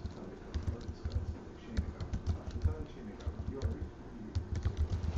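Scattered light clicks over an uneven low rumble.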